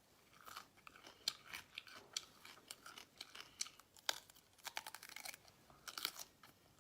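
Faint close-up chewing of crisp food, with irregular sharp crunches and crackles as it is bitten and chewed.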